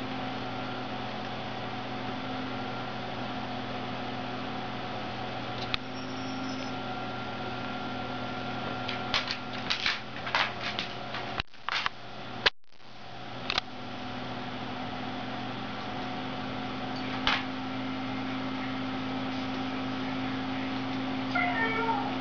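A steady electrical hum runs throughout, with a cluster of short clicks and knocks in the middle and a brief drop-out. Near the end a Siberian husky gives a short falling whine.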